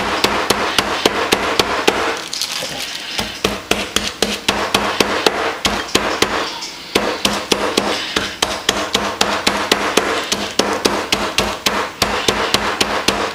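Metal meat-tenderizer mallet pounding garlic cloves in a zip-top plastic bag on a stone countertop: rapid, steady blows, several a second, with a couple of brief pauses, crushing the garlic.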